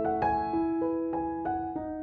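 Background piano music: a melody of single struck notes, about three a second, each ringing on until the next.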